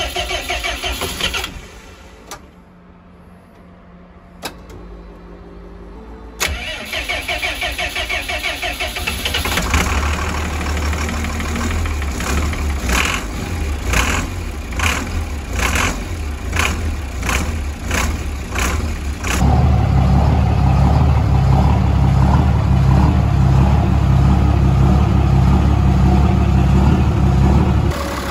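24-valve 5.9 L Cummins diesel engine being cranked on its starter in two goes, then catching and running with a regular sharp beat about twice a second. Some two-thirds of the way through it steps up to a louder, steady run. This is its first start after the air was bled out of the fuel system by cracking the injector lines.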